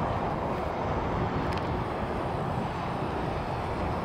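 Steady outdoor ambient noise: a constant rushing sound with a low rumble underneath, with no distinct events.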